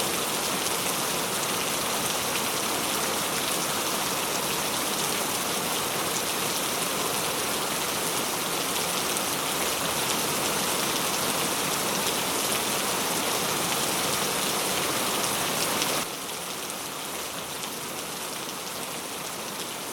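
Steady, dense rainfall, a continuous hiss of drops. About sixteen seconds in it drops suddenly to a quieter level and carries on.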